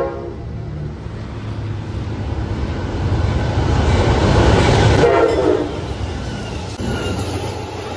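Amtrak passenger train led by a GE Genesis diesel locomotive passing at speed. The tail of its horn cuts off at the start, then the locomotive's rumble and rushing wheel noise build to a peak about four to five seconds in as it goes by, followed by the steadier rolling of the passenger cars.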